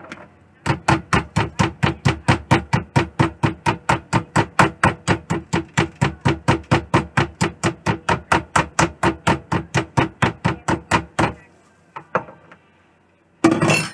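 Meat tenderizer mallet pounding beef cube steaks thin on a wooden cutting board: a steady run of about four blows a second for some ten seconds. A brief rustle near the end, likely the plastic wrap being handled.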